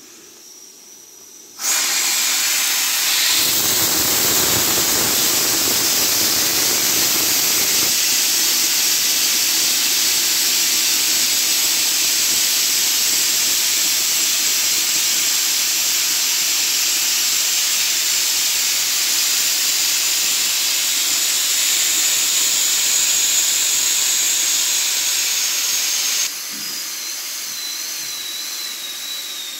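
Steam hissing out of a Goley Plus stainless-steel vertical autoclave's release valve as the chamber is vented. It starts suddenly about two seconds in and holds loud and steady, then drops to a weaker hiss with a faint wavering whistle near the end.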